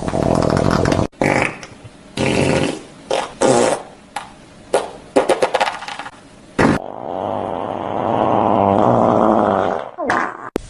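Farting sound effect: a run of short, separate fart noises, then one long, drawn-out fart of about three seconds starting about seven seconds in, then two short ones near the end.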